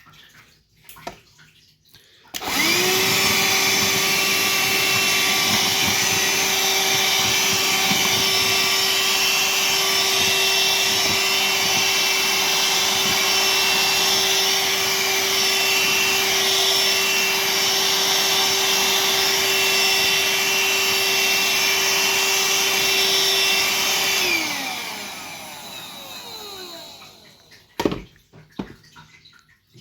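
Parkside cordless vacuum cleaner switched on about two seconds in and running at a steady pitch with a constant whine. It is switched off about three-quarters of the way through, and its motor winds down, falling in pitch over a couple of seconds. A single sharp knock follows near the end.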